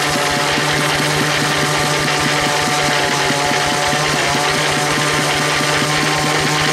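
Log bandsaw mill running steadily between cuts, with a fast, even chugging from its drive under a constant hum.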